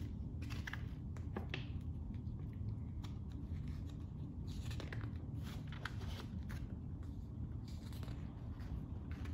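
Hardcover picture book being handled, with its paper pages rustling and one page being turned about five seconds in, over a steady low room hum.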